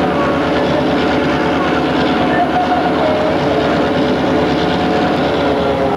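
EMD GP-9 diesel locomotive's 16-cylinder two-stroke 567 engine running steadily, heard from the cab while the train rolls along the track.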